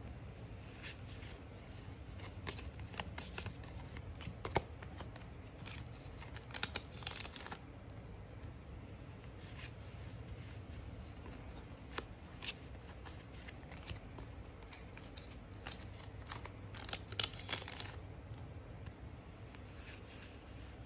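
Yu-Gi-Oh trading cards being handled and sorted: soft scattered card slides, rustles and light taps as cards are flipped and laid onto stacks, with a few sharper ticks.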